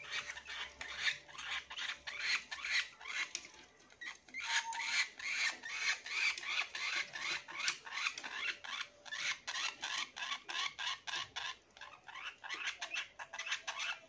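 Lovebirds chirping in quick, high, squeaky calls, several a second, with short lulls about three and eleven seconds in.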